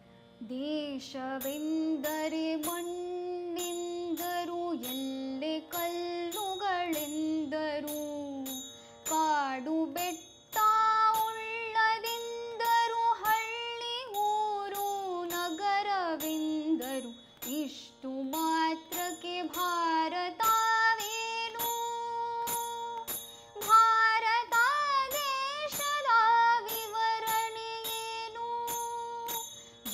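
A woman singing a Kannada song with long, ornamented sliding notes, over a steady drone note and light, regular percussion ticks.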